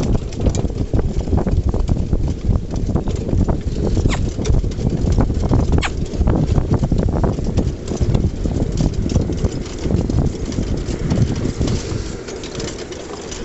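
Pony-drawn cart rolling across a grass field: the pony's hoofbeats mixed with the cart and harness rattling and a steady low rumble from the wheels, easing off a little near the end.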